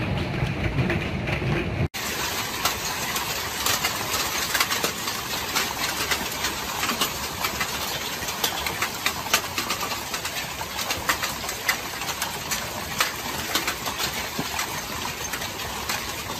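Heavy hail falling hard into an above-ground swimming pool: a dense, steady hiss of splashing pierced by many sharp clicks of hailstones striking. About two seconds in, an abrupt cut from a stretch of hail on a yard.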